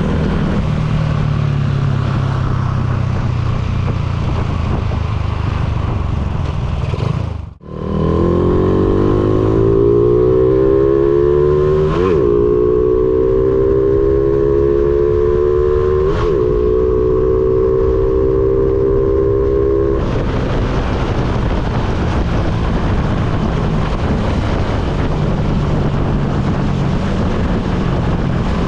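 Honda Supra X single-cylinder four-stroke, bored out to 185cc, being ridden under acceleration, with steady rushing noise around the engine sound. After a brief drop about a third of the way in, the engine note climbs steadily for several seconds, with two short breaks, then levels back into steady riding noise.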